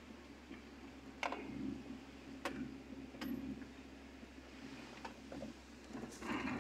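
Car cabin noise while driving: a steady low drone from the engine and the road. A few sharp clicks come at uneven intervals over it, about a second apart.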